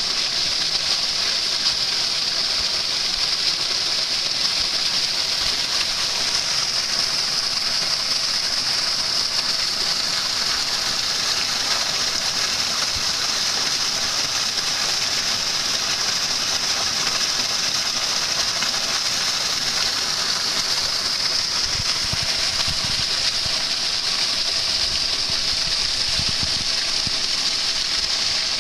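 A stream flowing over stones, a steady rushing and splashing of water.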